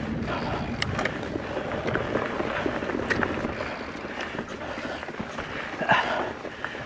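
Mountain bike riding over a dirt trail: steady tyre and wind noise, with scattered clicks and rattles from the bike and a brief louder rattle about six seconds in.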